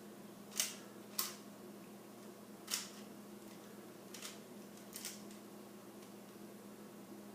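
Plastic Rubik's Cube layers being twisted by hand: about five short clicks at uneven intervals, the three loudest in the first three seconds, over a faint steady hum.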